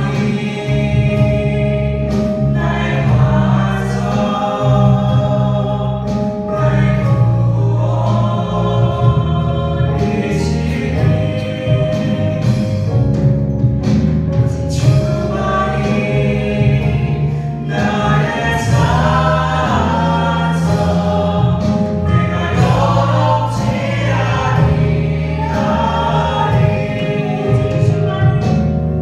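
Contemporary worship band performing a Korean praise song: a woman and men singing in Korean over keyboard, drum kit, electric guitar and acoustic guitar.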